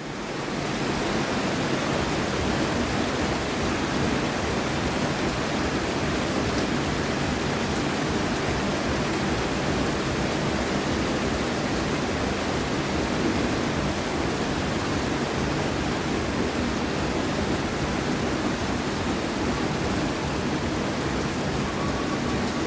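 Steady rain falling as an even, dense hiss, fading in over the first second and then holding level.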